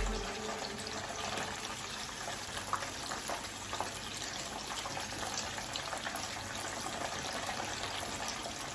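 Water running steadily from a kitchen tap, with a few light clicks.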